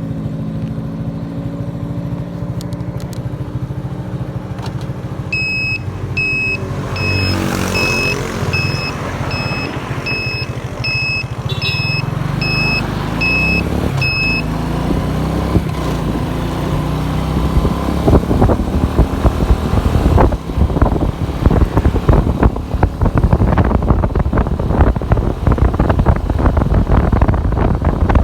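Motorcycle on the move: the engine running and changing pitch as it speeds up, with a beeper sounding about once a second for several seconds in the first half. From about two-thirds of the way in, wind buffeting on the microphone grows loud as speed rises.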